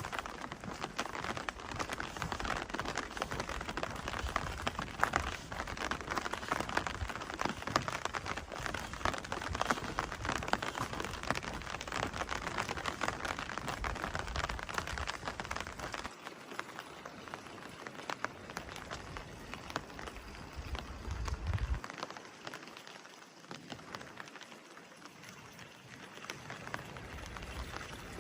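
Steady rain falling and pattering on hard surfaces, a dense hiss of many small drop ticks, which drops to a quieter patter a little past halfway.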